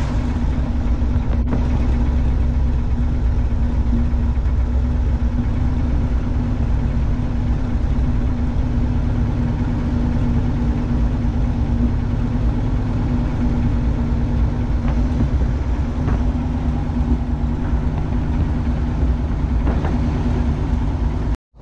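1968 International Loadstar CO-1700 truck engine idling steadily on its new spark plugs and plug wires, with a constant low hum. The sound cuts off abruptly just before the end.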